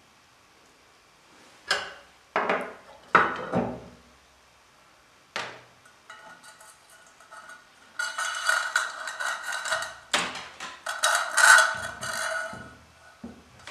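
Ceiling fan's metal motor cover being handled while the wires are fed through it: a few separate knocks, then several seconds of ringing metallic clatter and scraping.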